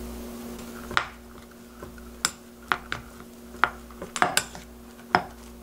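White plastic rice paddle knocking and scraping against a glass mixing bowl while rice is mixed with salt and sesame oil: about eight sharp, irregular clicks from about a second in.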